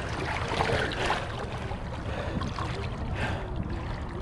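Shallow river water sloshing and lapping as a large white sturgeon is held and swung back and forth in it.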